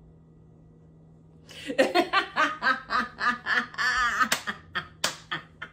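Two women laughing hard together in quick, rhythmic bursts, starting about a second and a half in. Two sharp smacks cut through the laughter near the end.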